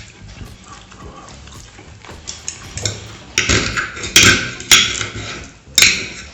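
Close-miked eating sounds of lemon pork neck with tuna sauce. Quiet for the first few seconds, then a series of loud, short bursts from about halfway in, with another near the end.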